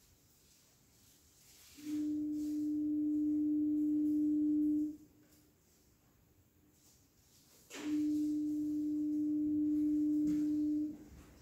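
Two long, steady tones at the same pitch, each lasting about three seconds, with about three seconds of near-quiet between them.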